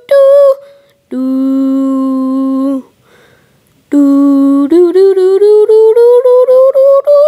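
A person's voice humming a wordless tune. It holds a short high note, then a long low note, pauses for about a second, then hums another low note and a quick run of short notes that climb steadily in pitch, ending on a held note.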